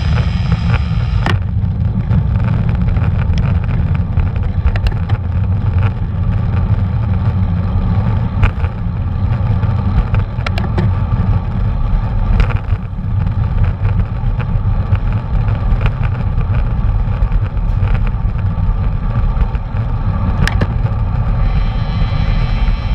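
Wind and road rumble on an action camera's microphone while riding a bicycle: a steady, loud low rumble with scattered clicks and rattles.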